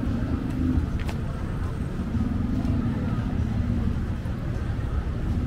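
City street traffic: a steady low rumble of motor vehicles, with a nearby engine hum that swells twice, and a single sharp click about a second in.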